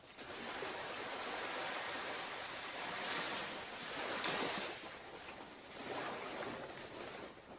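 Ocean surf washing onto a beach in surging swells, loudest about four seconds in.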